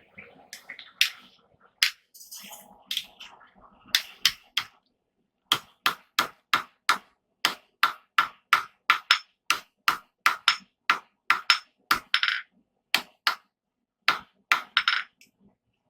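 Hand hammer striking steel on an anvil: a few scattered blows, then from about five seconds in a steady run of about two strikes a second, each with a short metallic ring. This is the forging of a loop into the long end of a rivet header's handle rod.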